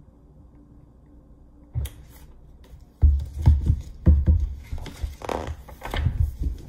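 Pages of a large picture book being flipped and the book handled on a wooden table: paper rustling with dull thumps, starting about three seconds in after a single knock near two seconds.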